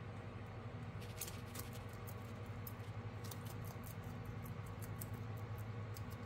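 Bearded dragon biting and chewing chopped salad greens: faint, irregular crisp clicks that start about a second in, over a steady low hum.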